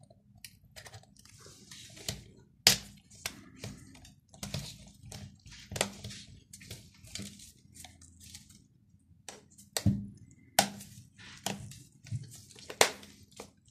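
Plastic body panels of a Nikon D7000 DSLR being pressed and snapped into place by gloved hands: scattered sharp clicks and small knocks with soft handling rustle between them. The loudest clicks come about three seconds in and several times near the end.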